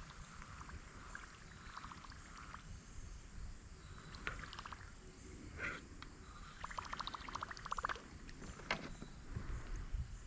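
Faint sounds of a fishing kayak on the water: low rumble with scattered light knocks from handling the boat and gear. About seven seconds in comes a short run of rapid, even clicks.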